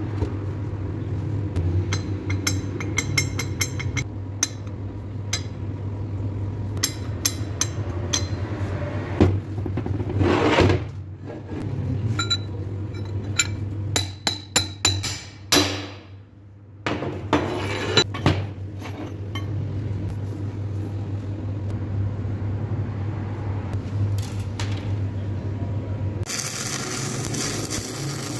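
Steel clinking and knocking as a heavy truck wheel hub and its bearing race are handled and worked with a steel bar, some strikes ringing, over a steady low hum. Near the end a welding arc starts crackling.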